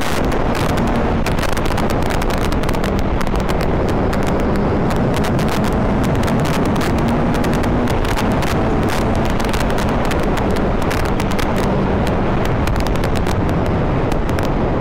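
Heavy wind buffeting on the microphone while riding a BMW K1200 motorcycle at highway speed, with its engine running steadily underneath.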